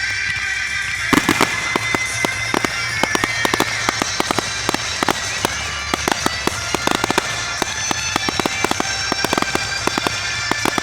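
Fireworks going off: a rapid, irregular string of sharp cracks and pops, several a second, over a steady hiss and whine.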